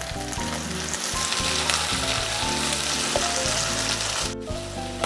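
Sliced shallots, garlic and red bird's-eye chillies sizzling in hot oil in a frying pan as they are stirred with a spatula, sautéed until the chillies just wilt. The sizzle cuts out for a moment a little after four seconds in.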